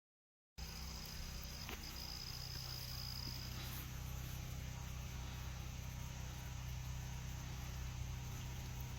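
A steady low hum that starts abruptly after a brief silence, with a thin high steady tone over it for the first few seconds.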